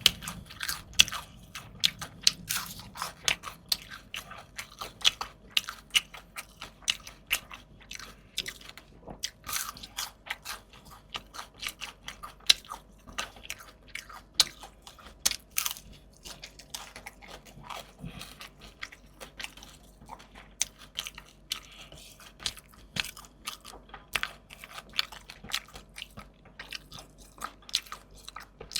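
Close-miked eating: crisp crunching bites and chewing of fried fish and fresh raw vegetables, a rapid irregular run of crackling clicks.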